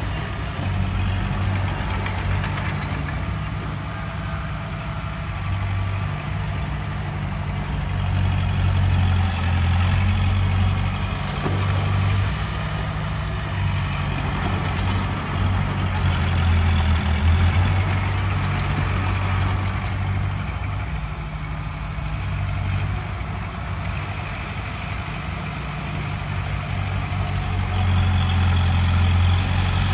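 Heavy diesel earthmoving machinery running: a steady low engine drone that swells louder and eases off several times.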